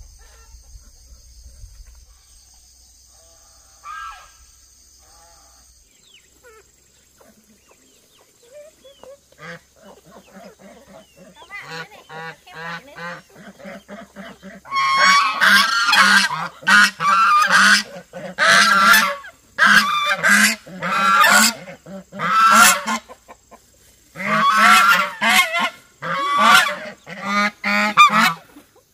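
Domestic geese honking loudly and repeatedly, faint at first and then in loud runs of calls with short pauses from about halfway through. Before the honking, a steady high-pitched insect drone.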